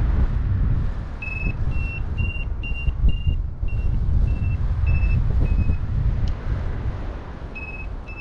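Paragliding variometer beeping in runs of short, high beeps about two a second, the climb tone signalling that the glider is in gently rising air; the beeps pause for a second or two and start again near the end. Heavy wind rumble on the microphone underneath.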